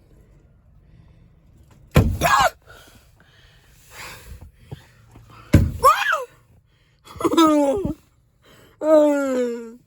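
People shouting and shrieking without words: four loud yells a second or two apart, the last one sliding down in pitch.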